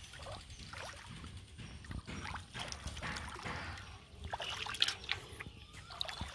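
Shallow muddy water splashing and trickling in short, irregular bursts as hands work through it.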